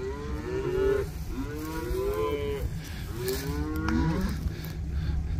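Cattle mooing: three drawn-out calls of about a second each, the pitch rising and then falling within each call.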